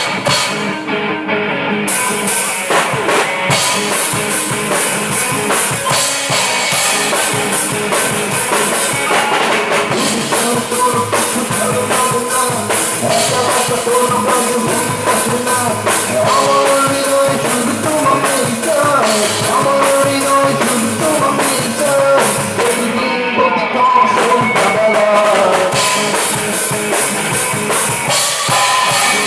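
Rock band jamming: a drum kit with bass drum and cymbals under electric guitars, playing continuously. The cymbals drop out briefly about three-quarters of the way through.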